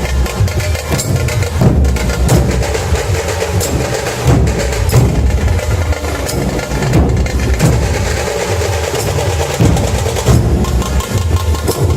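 Puneri dhol-tasha ensemble playing: massed dhol barrel drums beating a loud, continuous rhythm, with tasha drums rattling on top.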